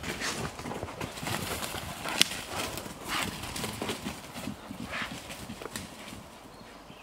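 Pigs trotting out across the pasture, irregular hoof footfalls and rustling through brush and undergrowth, with one sharp snap a little over two seconds in. It fades as the pigs move off near the end.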